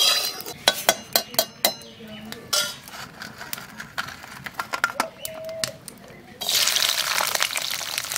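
Small crabs clicking and clinking on a steel plate as they are gathered by hand, then, about six seconds in, a sudden loud sizzle as they go into hot oil in a metal wok and fry steadily.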